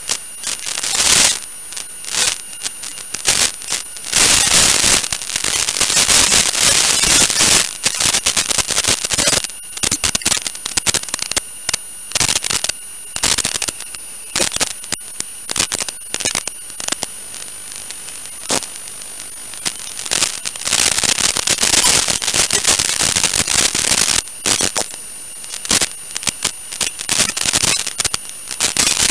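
Static hiss and crackle from an analog 5.8 GHz FPV video receiver's audio, surging in loud irregular bursts as the weak video signal breaks up. A faint steady high tone runs under it.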